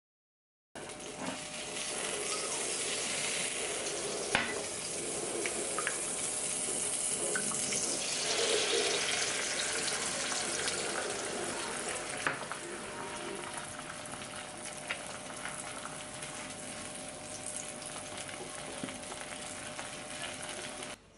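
Beaten eggs sizzling in a hot frying pan as they are scrambled, with a few sharp clicks of silicone-tipped tongs against the pan. The sizzling starts about a second in, after a moment of silence.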